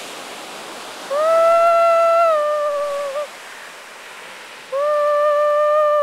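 A woman's voice holding two long sung notes, one starting about a second in and one near the end, each sliding down a little as it closes, over a steady hiss of surf.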